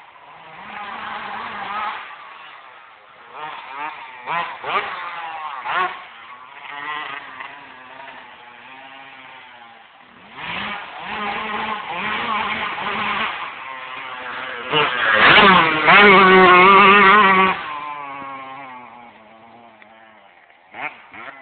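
Yamaha YZ125 two-stroke motocross bike ridden off-road, its engine revving up and down again and again with breaks between the climbs, loudest about three-quarters of the way through as it comes nearest, then fading away.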